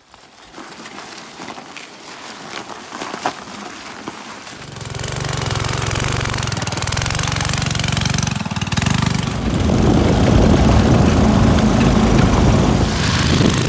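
Small single-cylinder engine of a Carter go-kart comes in about four and a half seconds in and runs steadily. About ten seconds in it gets louder and harder as the kart drives off under throttle.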